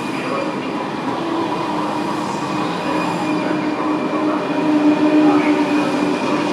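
A ČD Class 680 Pendolino electric train running past along the platform, its carriages rushing by with wheel-on-rail noise and a steady whine. It grows louder toward the end.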